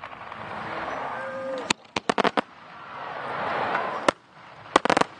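Fireworks display: sharp bangs of aerial shells over a swelling crackle. There is one bang, then a quick run of four, another single bang, and a tight cluster near the end.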